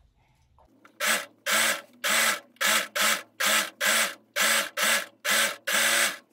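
Serger (overlocker) running in about twelve short, evenly spaced spurts, a little over two a second, stitching the seam and trimming the excess fabric away. The spurts start about a second in.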